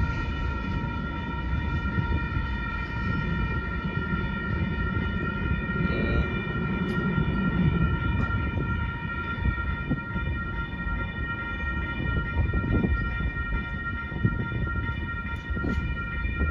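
Loaded Union Pacific rock train rolling through a grade crossing: a steady low rumble with a high-pitched whine held steadily over it.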